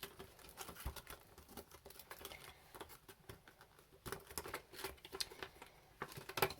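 Banknotes being handled and tucked into budget envelopes: light paper rustling with irregular small clicks and taps, busier in the second half.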